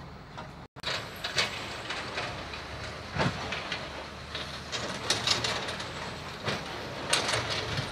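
Heavy construction machinery running, a steady rumble with irregular clanks and rattles.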